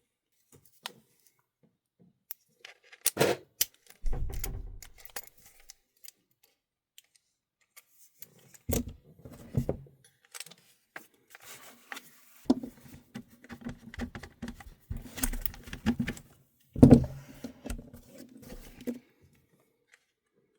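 Hard plastic and metal parts being handled: irregular clicks, knocks and rattles, with a few louder knocks and a dull thud about four seconds in, as a polymer airsoft folding stock and its adaptor are worked by hand.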